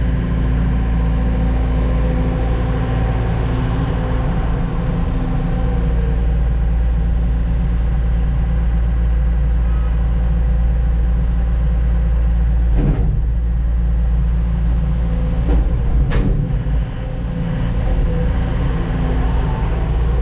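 Heavy diesel truck engine running steadily and loudly, with two sharp knocks, about 13 and 16 seconds in.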